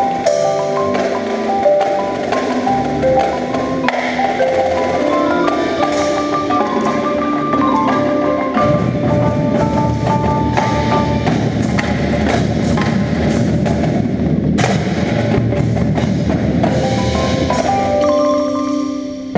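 Indoor percussion ensemble playing: quick xylophone and glockenspiel lines over drums and other percussion hits, heard close up from a mallet player's position. The low end fills in with a heavier layer about eight seconds in, and there is a brief drop just before the end.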